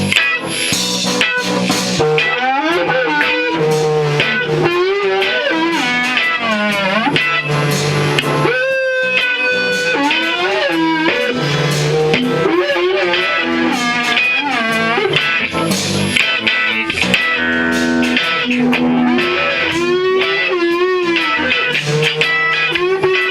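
Electric guitar playing a lead line with bent, wavering notes over a bass part.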